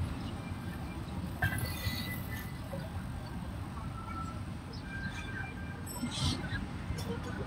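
Electric hair clippers running steadily as they cut short hair.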